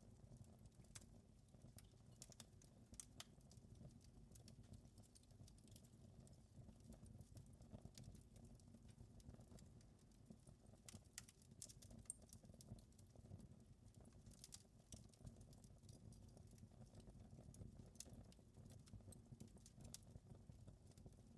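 Wood fire crackling faintly: irregular pops and snaps scattered throughout, over a low steady rumble of burning.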